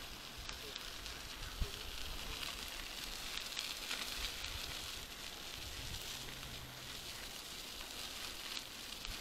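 Bicycle tyres rolling over a sandy dirt path, a steady gritty crackle, with a single sharp knock about one and a half seconds in.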